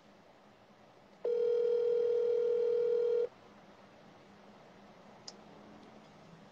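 Phone call tone on speakerphone as an outgoing call is placed: one steady beep about two seconds long, starting about a second in. A short click comes near the end.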